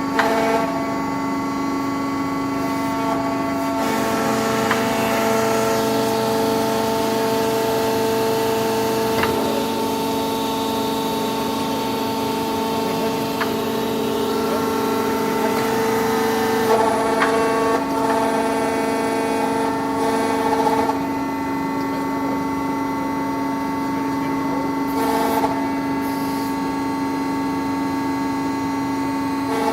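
HVS-145E drilling machine running steadily, a constant mechanical hum made of several held tones. The tone changes a few times, about four seconds in, and again past the middle.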